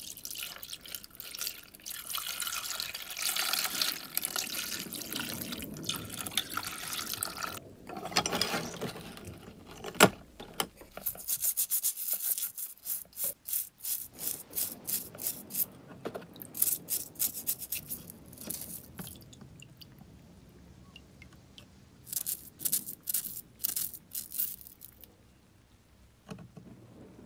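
Water pouring from a jug into a plastic tub onto brass blowtorch parts coated in carbon-remover foam, for about eight seconds. A sharp knock about ten seconds in, then runs of quick scratchy strokes, several a second, as the wet parts are handled and scrubbed in the tub.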